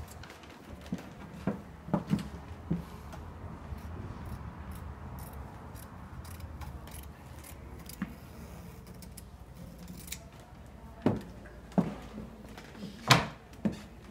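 Scattered clicks and snips of fabric scissors cutting muslin and being handled: a cluster in the first few seconds, a lone click in the middle, and several more near the end, the loudest a sharp knock close to the end, over a low steady hum.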